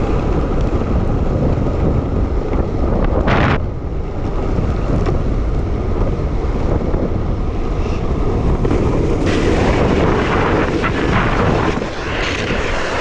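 Heavy wind buffeting the microphone over the rolling roar of longboard wheels on asphalt during a fast downhill run. From about nine seconds in the noise grows brighter and rougher.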